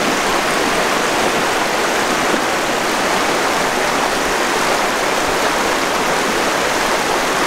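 Mountain stream rushing over rocks and stones: a steady, unbroken rush of water.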